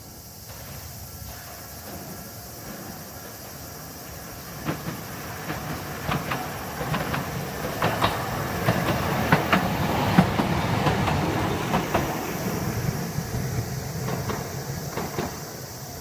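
Toei 9000-series streetcar passing along the track, growing louder to a peak midway and then fading as it moves off. A series of sharp clicks from its wheels on the rails runs through the loudest part.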